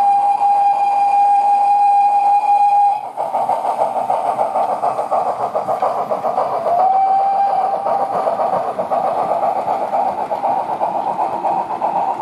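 Wheeltappers DCC sound in a Bachmann ROD 2-8-0 model steam locomotive: a long steam whistle that cuts off about three seconds in, then fast, steady chuffing as the train runs, with a short second whistle toot about seven seconds in.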